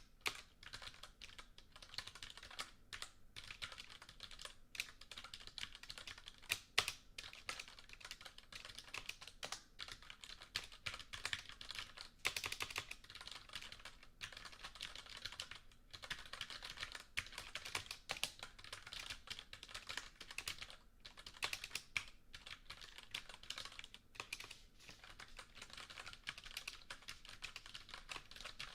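Typing on a computer keyboard: a steady, uneven stream of key clicks, with a few louder keystrokes and a fast run of typing about twelve seconds in.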